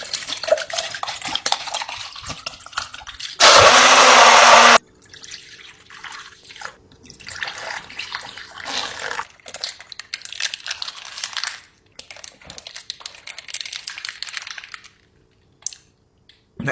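Close-miked eating sounds: wet chewing and mouth smacking in irregular strokes. A loud rushing noise comes in about three and a half seconds in and lasts about a second and a half.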